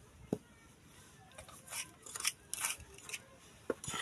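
A metal spoon scraping and clinking in a small bowl: a low knock near the start, a run of short scrapes in the middle, and another knock near the end.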